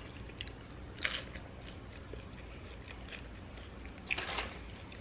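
Chewing and biting into food, the mouth sounds of people eating a sandwich and curly fries, with two short louder bite sounds about a second in and again about four seconds in.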